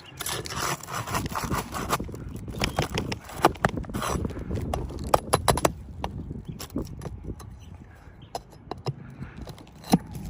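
Hand tool scraping under asphalt roof shingles, with many sharp clicks and knocks, as the shingles are lifted and the nails beneath them worked loose. The loudest knock comes near the end.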